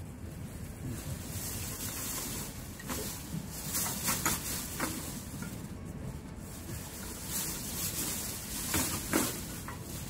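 Plastic rubbish bag rustling and crinkling in several short bursts as litter is picked from between rocks, the loudest bursts about three to five seconds in and again near the end. A steady low rumble of wind and surf runs beneath.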